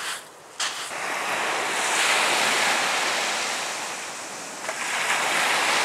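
Sea waves breaking and washing up a sandy beach in two swells about three seconds apart. Before them, in the first half-second, come a couple of soft crunches of feet in sand.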